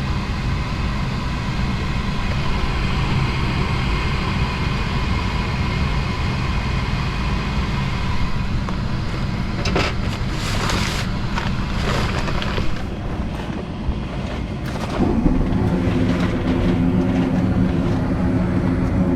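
Gas furnace running with a steady motor hum, with a few clicks and rattles around the middle and a deeper hum joining about fifteen seconds in.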